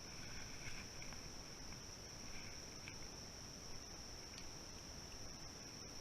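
Insects trilling in a steady, high-pitched drone, faint, with a few small ticks over it.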